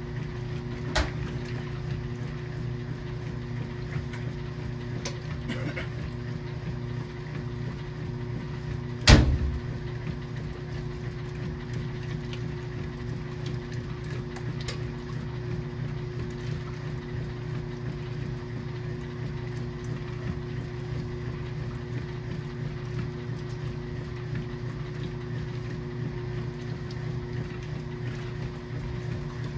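KitchenAid washing machine running through its wash cycle with a steady motor hum, a few light clicks, and one loud knock about nine seconds in.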